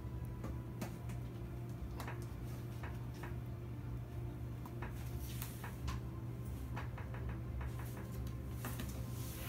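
Cat rolling and shifting inside a cardboard box, its claws and body scraping the cardboard in scattered short scratches and clicks, over a steady low hum.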